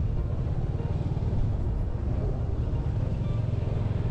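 Motorcycle engine running steadily while being ridden on a mountain road, a continuous low rumble.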